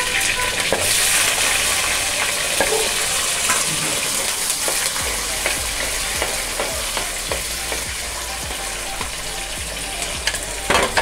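Baby onions sizzling in hot oil with mustard, fenugreek and cumin seeds in a clay pot, stirred with a spoon that ticks against the pot. The sizzle fades a little over the seconds, and there are a few louder knocks near the end.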